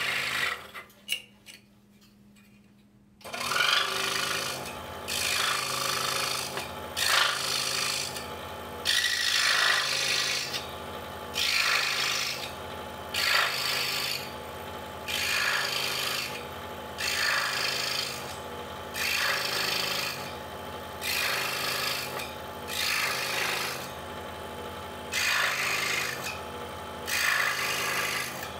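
DeWalt scroll saw running, its blade cutting short relief cuts into a wooden puzzle: a rasping cutting burst about once a second over the steady motor hum. The saw stops about a second in, leaving near quiet with a few clicks, and starts again about three seconds in.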